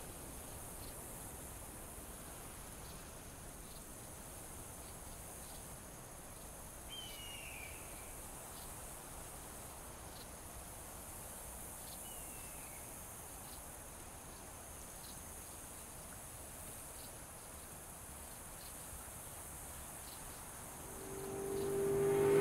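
Faint, steady drone of insects, with light ticks about once a second and, twice, a short falling bird cry. In the last second or so a rumble swells quickly as a vehicle approaches.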